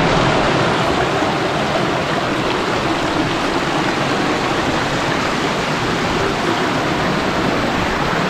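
Creek water rushing steadily down a small cascade over sandstone ledges into a pool, loud and even throughout.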